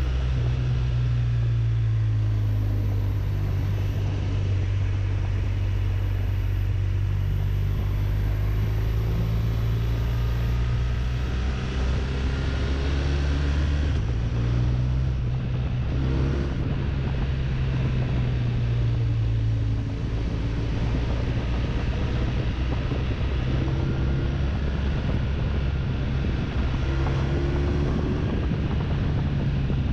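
BMW RT touring motorcycle's boxer-twin engine running steadily while riding, with wind rushing over the bike. The engine note changes about halfway through.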